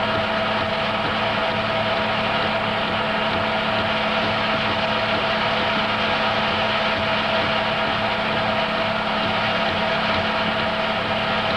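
Steady whirring of a home-movie film projector running, with a constant hum.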